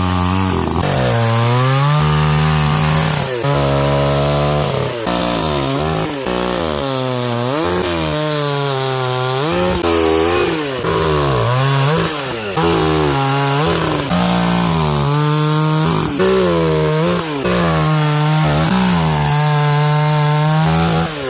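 Sakura petrol chainsaw's two-stroke engine running hard while cutting wood, its pitch dropping under load and climbing back again and again, roughly once a second.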